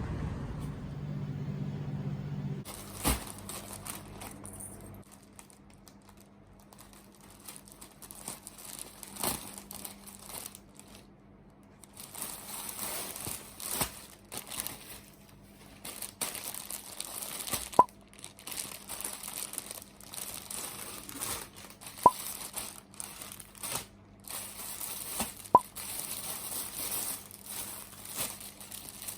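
Crinkling and rustling handling sounds, with scattered clicks and three sharp ticks about 18, 22 and 25 seconds in. A low rumble is heard during the first couple of seconds.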